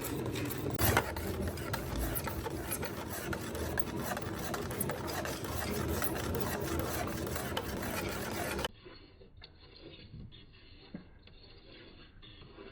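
Scratchy abrasive rubbing of sanding or filing on a plastic tail light lens, with one knock about a second in. It cuts off abruptly nearly nine seconds in, leaving a much quieter, duller background with a few faint clicks.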